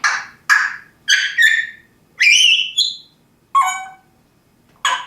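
Pet parrot giving a string of loud, sharp squawks and whistled calls, about seven in all, with a longer call that rises in pitch about two seconds in.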